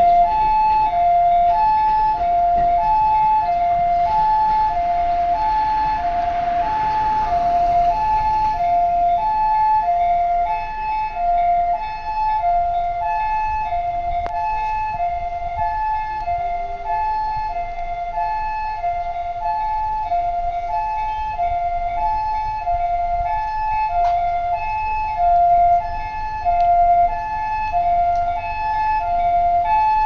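Japanese ambulance siren sounding its two-tone "pi-po" call, a higher and a lower note alternating evenly and repeating without a break. A rushing noise swells and fades a few seconds in.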